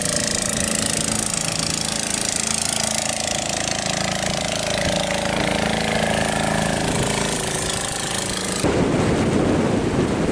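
Motor fishing boat's engine running steadily close by. About nine seconds in it cuts off abruptly and wind buffets the microphone.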